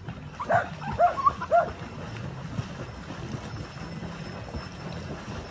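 Small dog barking, about four short high yaps in quick succession, over a steady low hum.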